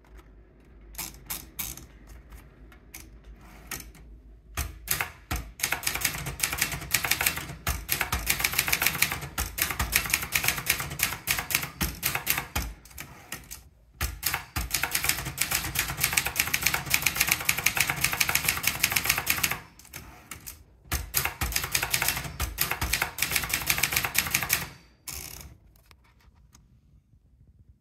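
Brother Deluxe 250TR typewriter being typed on: rapid key and typebar clacking in long runs broken by short pauses. It starts with a few scattered strokes and stops a couple of seconds before the end.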